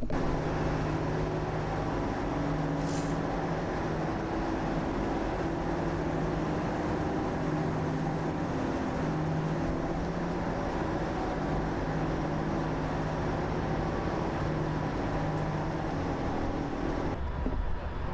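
Vehicle engine running steadily at low speed as the shuttle external tank's transporter is moved, a hum with a slightly wavering pitch. Near the end the sound cuts to a lower, duller rumble.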